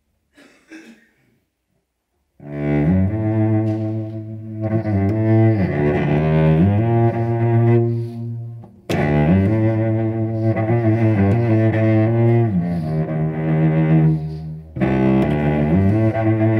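Solo cello, bowed, playing slow phrases of long held low notes. It starts about two seconds in, with two short breaks between phrases.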